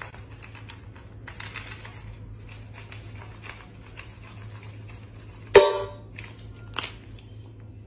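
Scattered light clicks and taps over a low steady hum, then a loud knock that rings briefly about five and a half seconds in, and a smaller knock about a second later.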